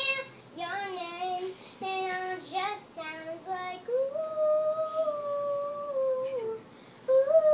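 A young girl singing unaccompanied: a few short sung notes, then one long held note lasting over two seconds, and a new phrase starting near the end.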